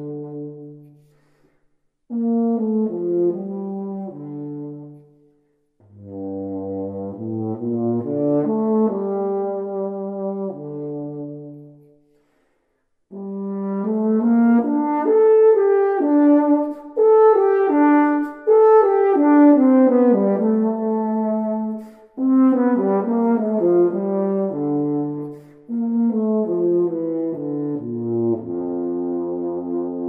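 Solo euphonium playing a slow, lyrical melody unaccompanied, in about five phrases separated by short pauses for breath, the last phrase settling onto a low held note.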